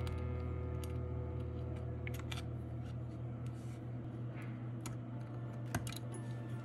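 Scattered small clicks and ticks of a plastic pry tool and fingers working the smartphone's board-to-board flex-cable connectors, over a low steady hum.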